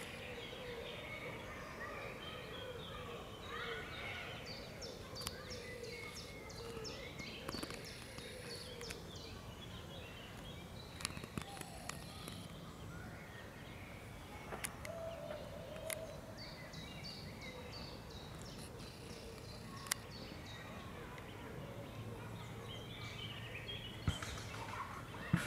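Mallard ducklings peeping: runs of short, high calls over a steady outdoor background, with a few sharp clicks.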